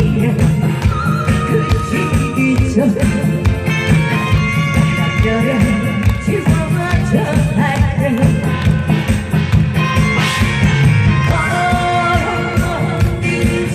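Guzheng playing a trot melody over a backing track with a steady drum beat.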